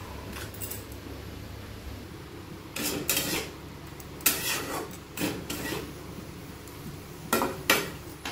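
Flat metal spatula scraping and clanking against a kadai while bottle gourd pieces are stir-fried, in a handful of short strokes from about three seconds in.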